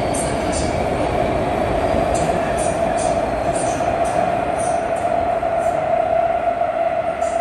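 Kunming Metro Line 5 subway train running through a tunnel, heard from inside the car: a loud steady rumble and rail noise with a constant drone and light high ticks recurring every half second or so.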